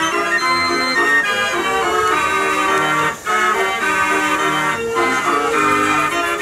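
Organ music: a tune of held chords and melody notes, with a brief pause about halfway through.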